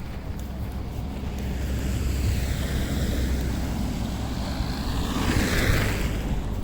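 A vehicle driving past, its tyre noise swelling to a peak near the end, over a steady low rumble of wind on the microphone.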